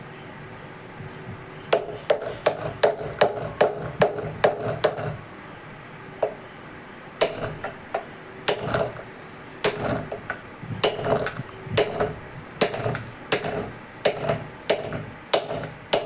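Metal hammer strikes driving a new front wheel bearing into a motorcycle hub. A quick run of blows begins after a short pause, there is a gap, then steadier blows about every second, each with a short metallic ring.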